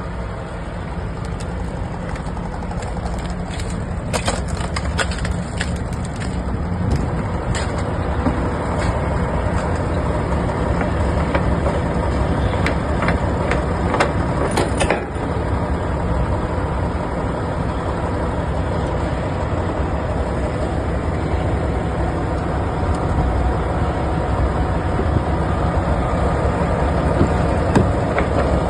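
Diesel truck engine running steadily, with scattered crunches and clicks of footsteps on ice between about 4 and 15 seconds in.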